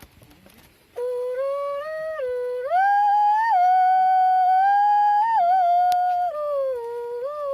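A woman humming a wordless tune in a high voice: a jingrwai iawbei, the melody name that Kongthong mothers compose for a person. It starts about a second in and moves in steps between long held notes.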